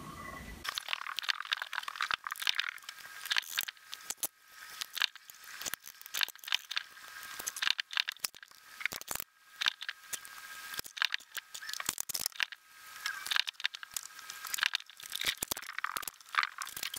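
Wood glue being squeezed from a bottle and spread on oak strips during a glue-up, with pipe clamps handled, heard as irregular thin, high-pitched crackling and clicking that starts abruptly about a second in.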